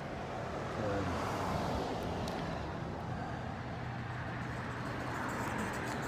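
A car passing on the street: its noise swells about a second in with a slight falling pitch, then fades slowly over a steady background of traffic.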